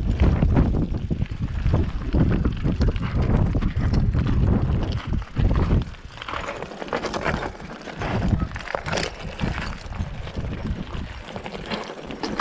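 Mountain bike rolling down a loose, rocky trail: tyres crunching over stones and the bike rattling over the bumps. Wind buffets the microphone with a low rumble through the first half.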